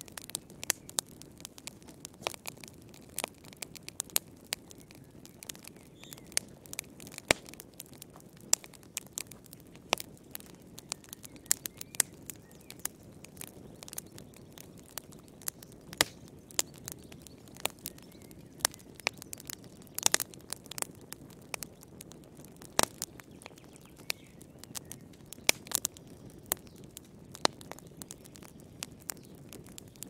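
Wood log fire crackling, with irregular sharp pops and snaps several times a second over a steady low rumble of burning.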